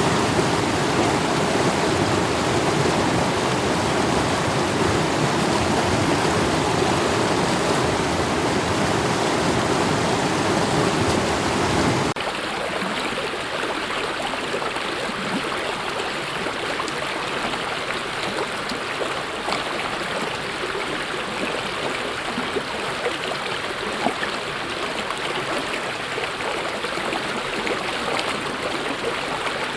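Mountain stream water rushing steadily. About twelve seconds in it cuts abruptly to a different, lighter and slightly quieter stream, with small splashes and trickles on top.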